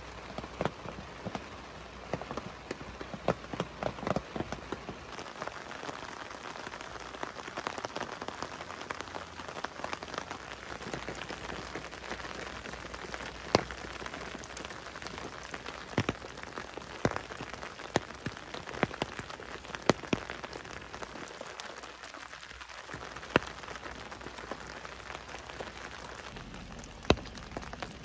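Rain falling steadily on a camping tent: a constant patter with many separate sharp drop taps, a few of them louder.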